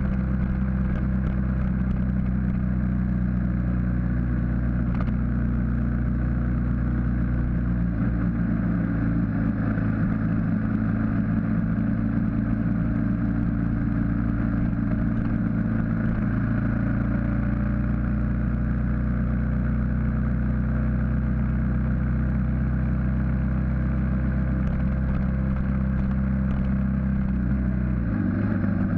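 BMW G650GS single-cylinder engine running steadily under way, heard from on the bike with wind rush. The engine note shifts about eight seconds in and again near the end.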